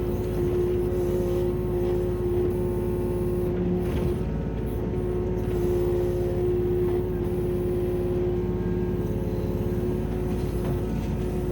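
Kubota U27-4 mini excavator's diesel engine running steadily, with a steady mid-pitched whine over its low hum.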